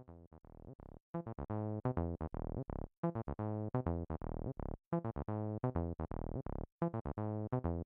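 Behringer TD-3 analog bass line synthesizer playing a sequenced acid bassline of quick staccato notes, a pattern that repeats about every two seconds. It starts faint and gets louder about a second in as its volume knob is turned up.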